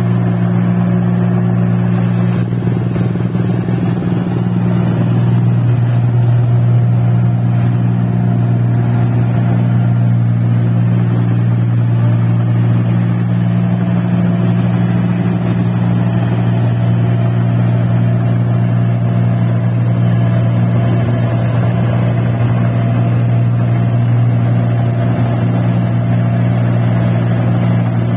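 Rice combine harvester's engine running at a steady pitch, a loud unbroken drone.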